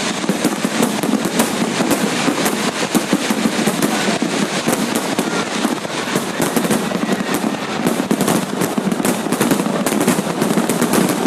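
Fireworks display: a dense, continuous crackle of many rapid bangs and pops with no pause.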